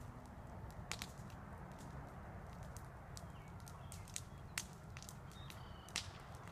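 A handheld lighter being flicked, a few sharp irregular clicks over a low steady rumble of outdoor background noise.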